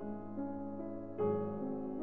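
Background piano music: slow, sustained chords, with a new chord struck about a second in.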